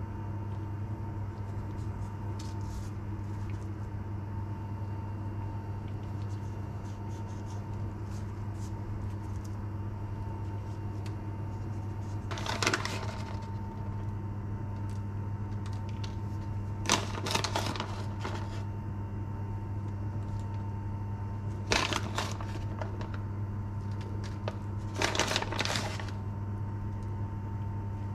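Plastic bag of shredded mozzarella crinkling in short bursts, about four times over the second half, as it is opened and shaken over the eggplants. Under it runs a steady low hum.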